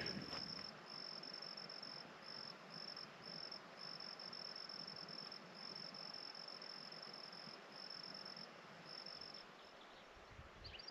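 A cricket trilling faintly at a high pitch, in steady runs of about a second with short gaps between them, stopping about a second before the end.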